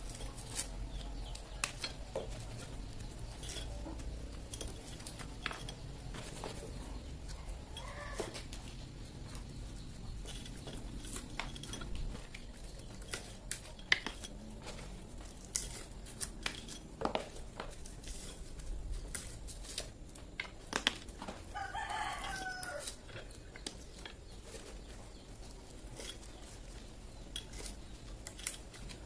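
Dried areca nuts being husked in a hand-cranked areca nut peeler and handled on a wooden board: irregular cracks, clicks and the clatter of hard shells. A rooster crows once about three-quarters of the way through.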